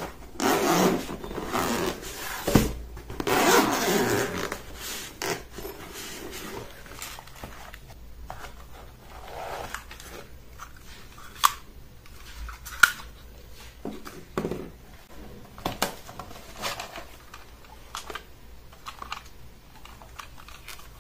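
Zipper of a fabric-covered hard drone case being drawn open in two long pulls, followed by scattered clicks and rustles as a folded mini drone and its plastic controller are lifted out of the foam insert.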